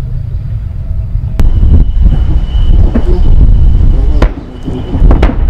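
Tracked self-propelled howitzers on the move, a heavy low rumble of engines and tracks. It grows louder about a second and a half in, when a thin high whine sets in. A few sharp cracks cut through it, two of them near the end.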